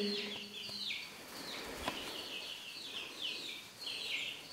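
Young chickens and guinea keets peeping: short, high peeps that fall in pitch, about two a second, with one small tap about two seconds in.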